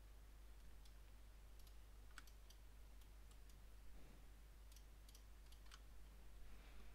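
Near silence with faint, scattered computer mouse clicks, about a dozen spread irregularly, over a low steady hum.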